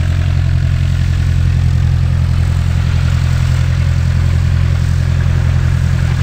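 Light aircraft's piston engine running steadily, a loud even low drone.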